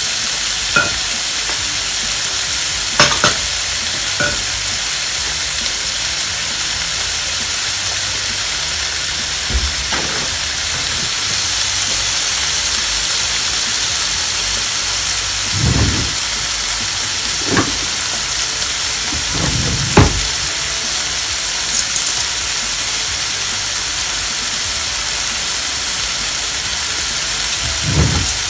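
Pork hocks searing in oil in a nonstick pan with sautéed onion, garlic and ginger: a steady sizzle as the meat browns, broken by a few short knocks.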